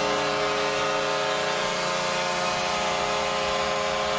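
Ice-hockey arena goal horn sounding one long, steady blast over crowd noise, signalling a home-team goal.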